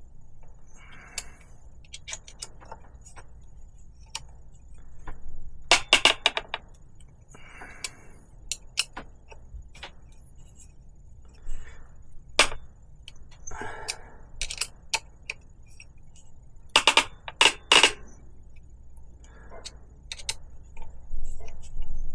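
Bolt-driven rivnut setting tool being turned with a wrench to compress a rivnut into a bicycle frame: irregular sharp metal clicks and short creaking, grinding passages as the threads and nut bind, a sound that is awful to hear but normal for the rivnut setting.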